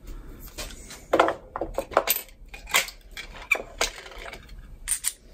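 Small steel Torx bolts and tools clinking as the fuel-tank bolts are handled and set down: a string of irregular, sharp metallic clicks.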